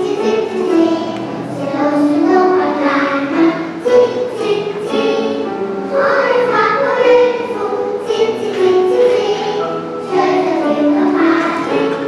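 Children's choir singing with grand piano accompaniment.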